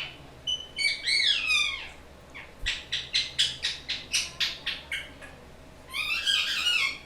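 Pet parrot calling: a few falling squawks, then a quick run of short chirps at about four a second, then a harsh screech near the end.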